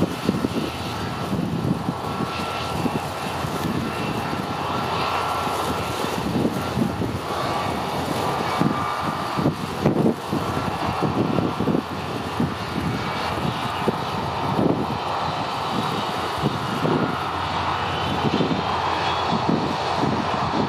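Handley Page Victor K2's four Rolls-Royce Conway turbofan engines running steadily with a high whine as the jet taxies slowly.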